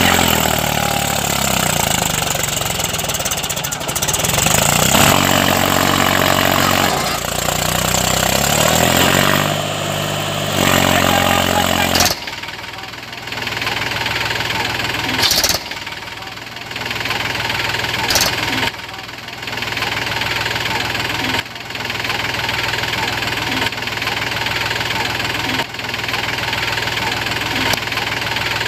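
Small engine of a homemade mini tractor running while it pulls a fully loaded trolley, its pitch rising and falling repeatedly in the first half. Then it runs at a steady speed, with a few brief clicks.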